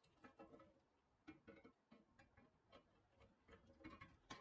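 Faint, scattered knocks and clicks of wood chunks being set into a cast-iron hibachi grill, ending with a sharper clack as the cast-iron grate is laid on top near the end.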